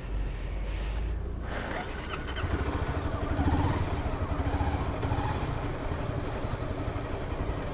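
Motorcycle engine running while riding, a low continuous rumble with the engine note rising and falling a little.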